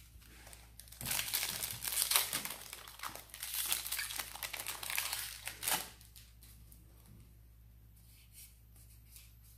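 A foil Magic: The Gathering booster pack wrapper crinkling loudly as it is torn open, from about a second in for nearly five seconds. After that come a few faint clicks of the cards being handled.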